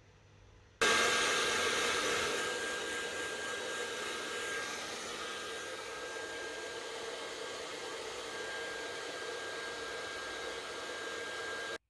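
A small electric appliance motor running with a steady rushing noise and a constant high whine, switched on suddenly about a second in and cut off just before the end.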